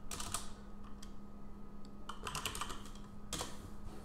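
Typing on a computer keyboard: three short bursts of keystroke clicks, at the start, a little past the middle and about three-quarters in, over a faint steady hum.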